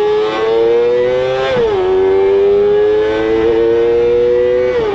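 Kawasaki ZXR250's 250 cc inline-four engine running at very high revs with a shrill, high-pitched note. The pitch climbs steadily, drops sharply about one and a half seconds in, then climbs again and drops once more near the end.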